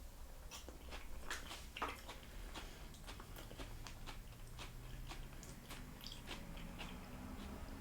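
A person chewing a mouthful of tostada close to the microphone, with many small, quiet crunches and clicks.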